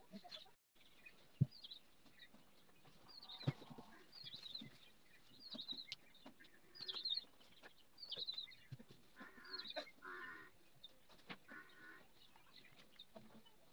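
Faint bird chirping outside, short high chirps repeated about once a second, with scattered knocks and clicks from small items being handled on a table; one sharp knock about a second and a half in is the loudest sound.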